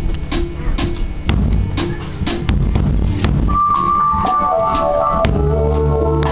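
A live church band's song intro: drum kit strokes about twice a second over low bass notes. About halfway in, organ-like keyboard notes come in, stepping downward, and a fuller sustained chord joins near the end.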